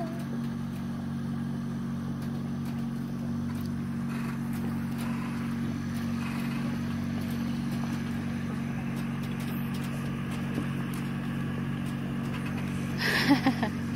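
An engine running steadily with an even low hum, unchanged throughout; a brief voice cuts in near the end.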